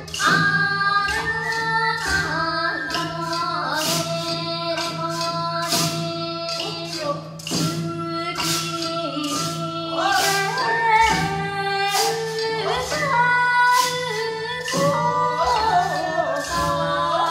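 Japanese folk music: a singer with a bamboo transverse flute over a steady beat of sharp percussion strikes.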